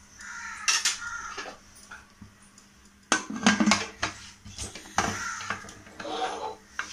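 Aluminium pressure cooker lid being set in place and locked shut: a string of metal clanks and scrapes, loudest about three seconds in.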